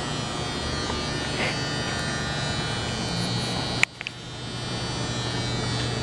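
Steady electric hum and buzz of a running motor, with a sharp click about four seconds in; the hum dips briefly after the click and swells back.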